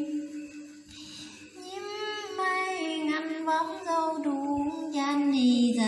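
A woman singing a folk song solo and unaccompanied. After a short pause near the start she sings long held notes that slide up and down in pitch.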